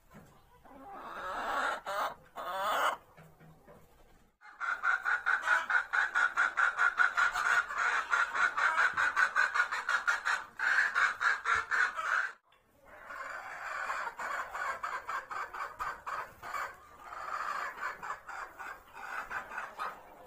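Chickens clucking in a rapid, unbroken run of repeated clucks. The run is loudest through the middle, breaks off briefly, then carries on more quietly.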